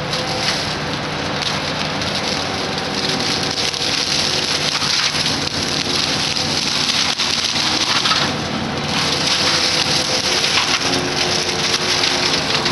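Excavator-mounted mulching mower head grinding through brush and small trees, a dense, continuous crackling hiss of shredded wood, over the excavator's engine running steadily. The grinding swells louder twice.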